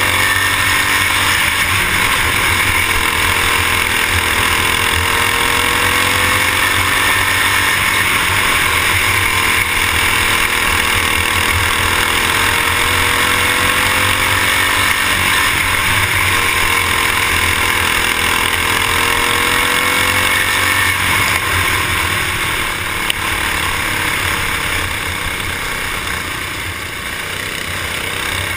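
Racing kart engine running hard on board, its pitch rising and falling again and again as it accelerates down the straights and lifts for the turns. It eases off and gets a little quieter over the last several seconds.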